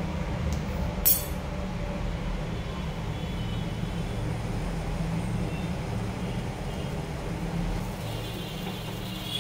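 Gas stove burner running steadily under a steel saucepan of chirata decoction heating toward the boil, with one sharp click about a second in. The liquid starts to bubble near the end.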